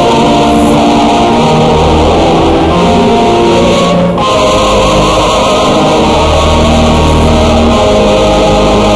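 Instrumental church music playing long held chords that move to new notes every second or so, over a loud steady hiss.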